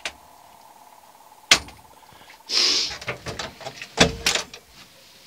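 Tractor cab door being opened and handled as someone climbs out: a sharp knock about a second and a half in, a scraping rustle, then a heavy thud with rattles about four seconds in. A faint steady whine stops at the first knock.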